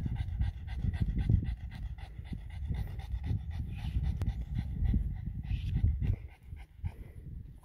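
Dog panting rapidly and steadily, growing quieter about six seconds in.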